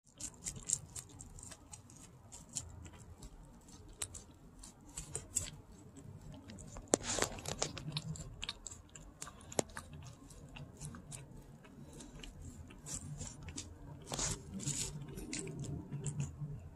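A Maltese dog licking and smacking at peanut butter spread on plastic wrap: a run of quick, irregular wet licks and clicks.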